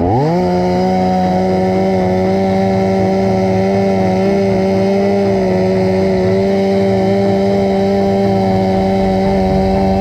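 Two-stroke chainsaw revved up sharply at the start and then held at full throttle, a steady, unwavering engine note.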